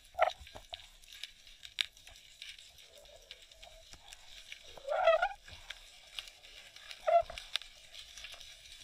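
Underwater sound picked up by a GoPro in its waterproof housing: scattered sharp clicks and crackles, with three short squeaky creaks, the loudest about five seconds in.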